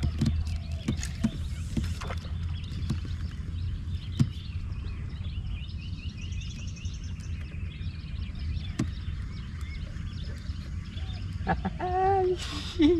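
Birds chirping and calling over a steady low outdoor rumble, with scattered light clicks and a louder call near the end.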